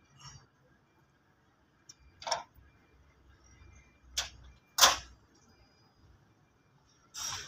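Hand tools on a 260 tractor's turbocharger fittings while the turbo is being unbolted: a spanner clicking on metal, about five separate sharp clinks, the loudest about five seconds in.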